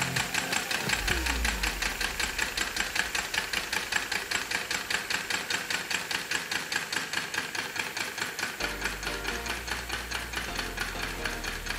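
Homemade single-cylinder steam engine built from sewing-machine parts, running fast with a rapid, even beat of strokes.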